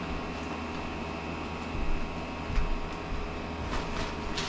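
Steady low room hum, with a couple of soft low thumps about two seconds in.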